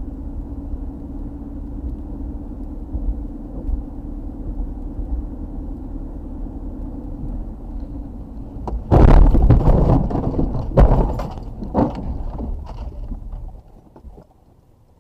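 Steady road and engine drone heard from inside the car. About nine seconds in, a sudden loud crash noise as the car leaves the snowy road: a rush of scraping and crunching with two hard knocks about a second apart, dying away near the end.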